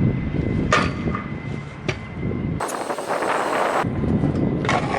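Stunt scooter riding: polyurethane wheels rolling on concrete with a rumble, and sharp clacks as the scooter hits and lands, about a second in and again near the end. In between, a bright hissing scrape lasts about a second, the sound of the deck grinding along a ledge.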